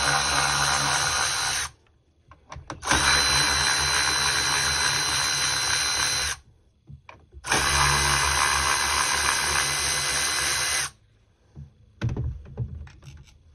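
Cordless electric ratchet spinning an 8 mm socket to back out the ignition coil bolts. It makes three steady runs of about three seconds each with a constant high whine, stopping sharply between them. A few light clicks and knocks near the end.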